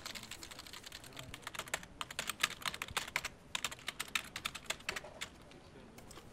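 Typing on a computer keyboard: a fast run of key clicks with a short pause about three and a half seconds in, stopping after about five seconds, then a couple of last keystrokes near the end.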